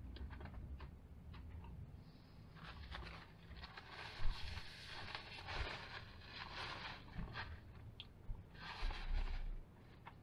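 Quiet chewing, then a paper takeout bag rustling and crinkling as it is handled, with one sharp click about four seconds in.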